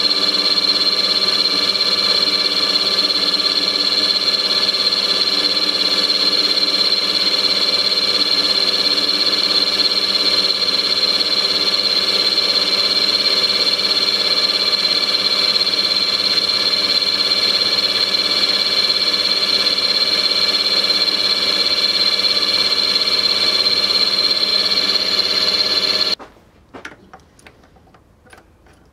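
Bench milling machine's motor and spindle running with a steady high whine. It switches off abruptly near the end, followed by a few light clicks.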